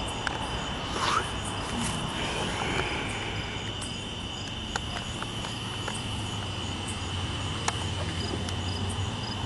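Crickets chirping in a steady high trill over the low rumble of a long intermodal freight train rolling slowly past, with a few scattered clicks.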